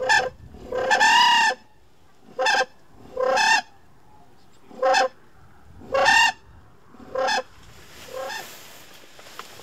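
A flock of cranes calling in flight: about eight loud rolling calls, some long and some short, about a second apart, the last one fainter.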